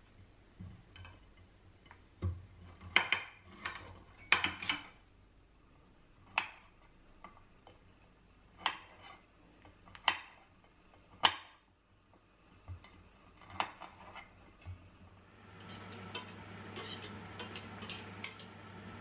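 Kitchen utensils knocking and clinking against pans and dishes in a series of sharp, separate knocks. About 16 seconds in, a steady sizzle of food frying in a pan takes over.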